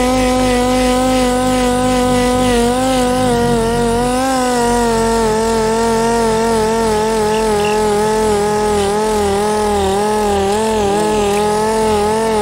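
Air-powered random-orbital sander running with a steady whine as it sands old paint off a car's steel roof pillar. Its pitch dips and wavers slightly as it is pressed into the panel.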